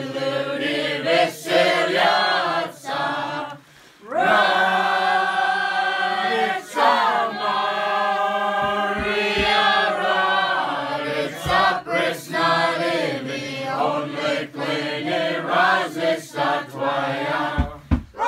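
A small group of voices singing a Slaaviq (Orthodox Christmas starring) carol together in long, held notes, breaking off briefly about four seconds in before starting again.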